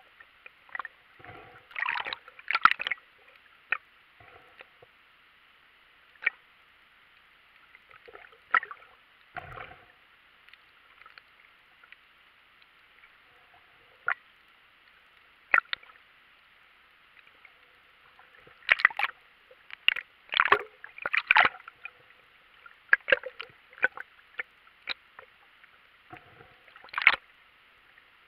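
Underwater sound heard through a camera's waterproof housing: a faint steady hiss with scattered sharp clicks and crackles, bunching about two seconds in, in a busier stretch about two-thirds of the way through, and once more near the end.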